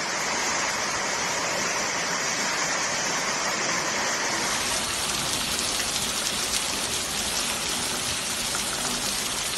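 Steady, loud rush of storm water, heavy rain and running water. The sound turns brighter and hissier about halfway through.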